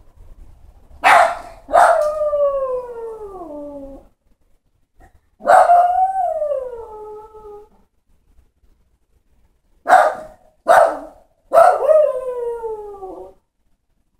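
Dog left home alone barking and howling in three bouts: each time a short bark or two runs into a long howl that slides down in pitch. These are the distress calls of a dog alone after its owner has left.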